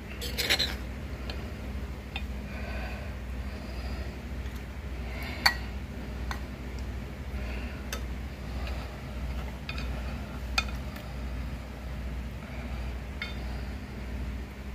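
Metal spoon clinking against an aluminium pot and a ceramic bowl while scooping braised fish: a few scattered sharp clinks, the loudest about five and a half seconds in and another about ten and a half seconds in, over a steady low hum.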